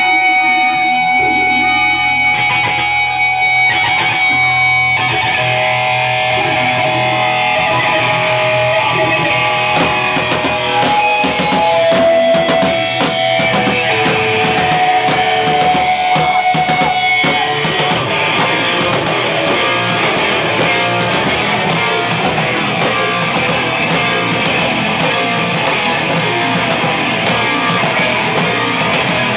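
Loud rock music led by guitar: held notes at first, then drums joining about ten seconds in with quick, steady hits.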